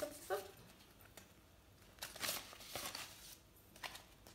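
Faint rustling and crinkling of a fabric drawstring pouch and the paper cards being pulled out of it, in a few short bursts.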